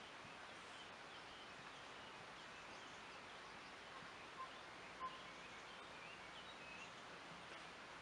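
Faint forest ambience: a steady hiss with small bird chirps scattered throughout, and two brief, slightly louder notes about four and five seconds in.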